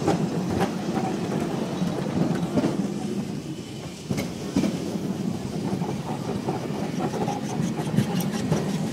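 Tram running along a street, its wheels knocking and clicking over the rails, with a run of quick clicks near the end, over a steady rumble of street noise.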